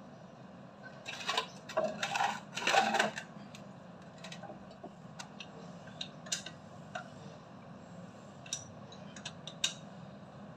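Metal tools and fittings clinking and clattering as a water pump is installed: a loud run of clattering about a second in, then scattered light clicks and taps.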